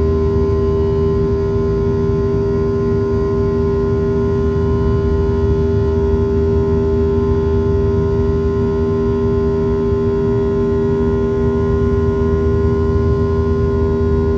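Boeing 737-700's CFM56 jet engines at climb power heard from inside the cabin during the initial climb after takeoff: a steady, loud drone with several held humming tones over a low rumble.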